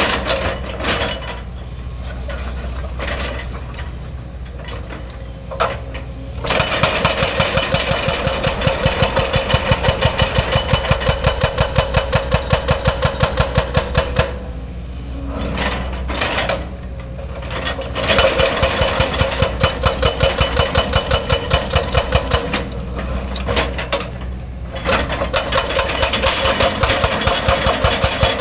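Excavator-mounted hydraulic breaker hammering rock, in runs of rapid even blows several times a second, with the diesel engine running steadily between the runs.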